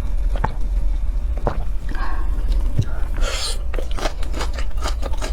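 Close-miked mouth sounds of a drink and a meal: a few sharp swallowing clicks as cola is sipped, a short breathy hiss about three seconds in, then dense crunchy biting and chewing of fried food.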